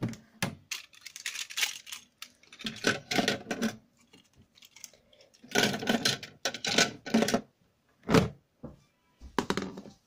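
Small toy cars clattering and knocking against each other and the plastic as they are put into the drum of a Casdon washMATIC toy washing machine, in several bursts of rattling. There are plastic clicks and knocks from the toy's door and buttons, and a single sharp knock about eight seconds in.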